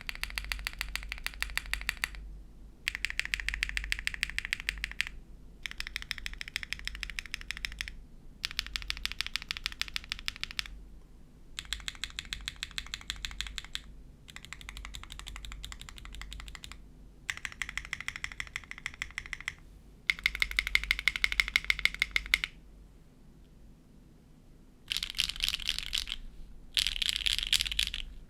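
Neo65 gasket-mount mechanical keyboard with HMX Cheese linear switches on a carbon fibre plate, no foam, and GMK keycaps, typed on quickly: a high-pitched clacking in runs of about two seconds with short pauses between.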